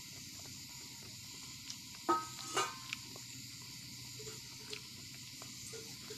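Fingers tearing roti against a steel plate, with two sharp clinks of the plate about two seconds in, half a second apart, the first ringing briefly. A steady hiss runs underneath.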